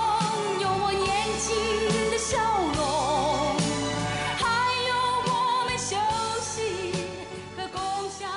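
Pop song with a singing voice, fading out over the last couple of seconds.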